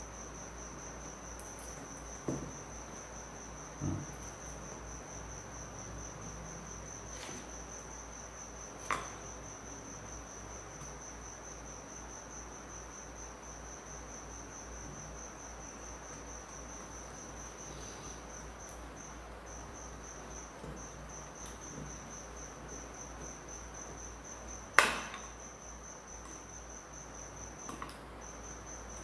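A steady high-pitched insect trill goes on throughout, breaking off briefly a few times near the end. Over it come a few scattered clicks and knocks as a screwdriver and wires are handled on a lamp holder; the loudest knock comes near the end.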